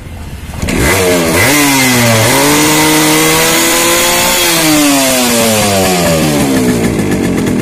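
Yamaha RX 115's single-cylinder two-stroke engine revving hard about a second in: the pitch climbs and falls twice, then drops back toward idle near the end. The bike has a cold-start fault: it will not start without the choke and dies when the choke is let go, which the mechanic puts down to the carburetor.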